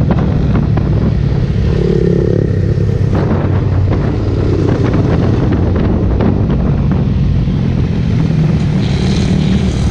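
Motorcycle engine running at a steady pace while riding, with wind noise over the microphone.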